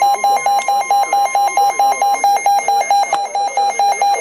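Weather alert radio receiver sounding its alarm: a rapid, loud beeping of about six or seven beeps a second. For the first two seconds a steady, higher weather-alert tone sounds under it, then stops.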